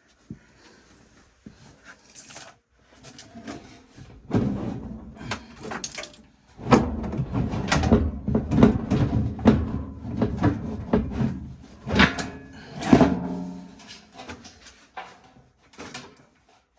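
Irregular knocks, clatters and scraping of hard objects being handled, busiest in the middle stretch, with a short low hum about two-thirds of the way in.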